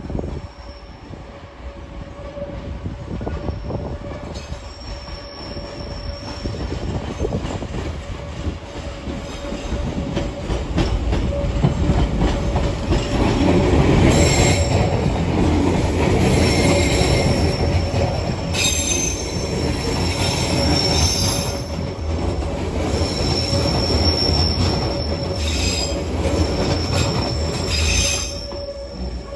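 Hanshin 5001-series electric commuter train running over the points and past at close range, its wheels rumbling and squealing. The rumble builds over the first twelve seconds or so, and the high wheel squeals come and go once the cars are passing close.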